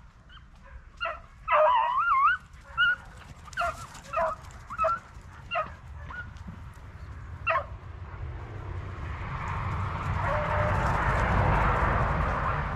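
Beagles yipping and baying in short cries that rise and fall in pitch, about a dozen in the first seven or eight seconds: hounds giving tongue while hunting rabbit. After that a rushing noise swells and stays loud to the end.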